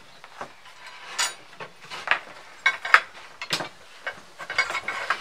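Metal bar clamps being handled on a wooden door frame: a string of sharp clinks and knocks, some ringing briefly, coming thicker in the second half.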